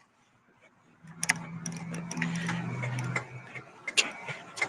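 A low steady hum with light ticking and clicks starts about a second in and stops after about two seconds, leaving scattered clicks, with one sharper click near the end.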